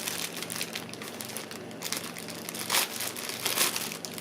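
Parcel packaging crinkling and rustling in irregular handling as it is opened, with a couple of louder crackles about three seconds in.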